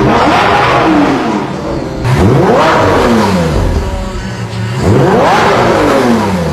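Car engine revved in sharp throttle blips: the pitch shoots up and then falls away, twice, with the tail of an earlier rev at the start.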